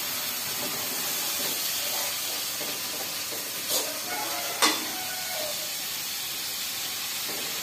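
Steady hiss from a wok over a lit gas-stove burner, the sound of the burner and hot frying pan. Two sharp metallic clinks a little under a second apart, near the middle.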